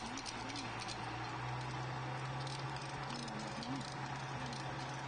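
Light, irregular footsteps of someone walking over a steady low hum.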